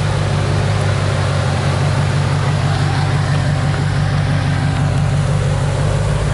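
Dodge Ram 2500 Power Wagon's 5.7-litre HEMI V8 running steadily at low revs, a deep rumble, as the truck crawls slowly over a dirt ledge.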